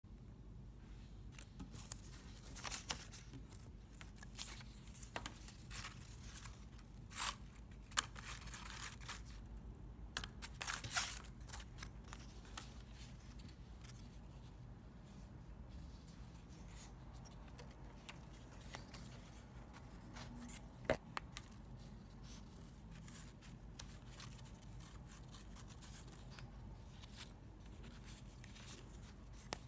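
Paper strips rustling and crinkling as they are folded over each other into a concertina. The rustles come in short scattered bursts, busiest in the first half, with a single sharp tap a little after the middle.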